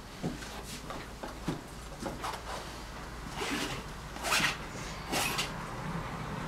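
A palette knife scraping thick dark oil paint across a stretched canvas. There are light taps at first, then three longer scrapes in the second half.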